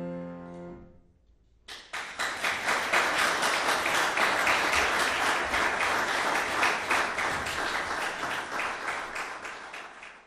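A grand piano's final chord dies away, then after a brief pause an audience applauds, the clapping tapering off near the end.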